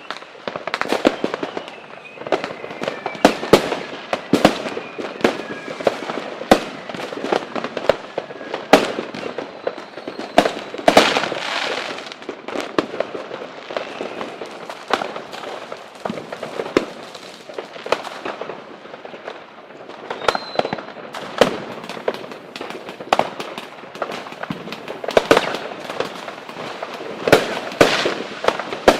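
Fireworks going off in a dense, irregular barrage of bangs and crackles, with a faint falling whistle over the first few seconds.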